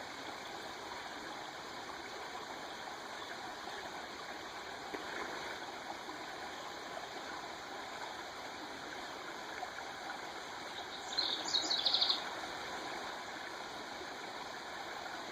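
Creek water running steadily. About eleven seconds in comes a short, rapid run of high chirps lasting about a second.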